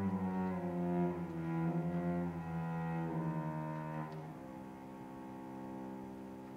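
Cello playing a slow, sustained melodic line, its notes changing every half second or so, with other held tones beneath; it grows softer about four seconds in.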